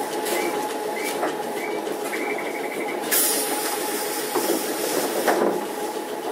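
On-board running sound of a Randen Mobo 21-type retro tram: a steady hum under a thin steady tone, with a sudden hiss starting about three seconds in.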